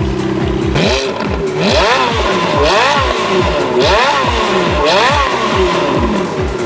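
Ferrari F430's V8 engine revved up and let drop again about five times, roughly once a second, each rev rising and then falling in pitch.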